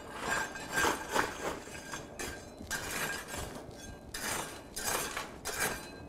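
Blacksmith's hammer striking iron on the anvil: a series of irregular, clinking blows, several with a short metallic ring.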